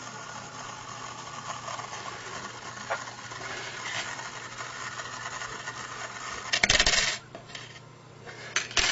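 Bent wire of a simple homopolar motor spinning on an AA battery's terminal, a steady scraping hiss from the wire rubbing at its contact points. About six and a half seconds in it comes off and clatters onto the table, followed by two short clatters near the end.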